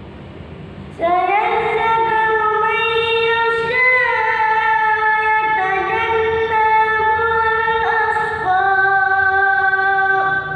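A child's voice chanting Quran recitation in the melodic tilawah style, holding long ornamented notes that step up and down in pitch. It comes in about a second in, and a new phrase starts at a lower pitch a little past the middle, over a faint low rumble.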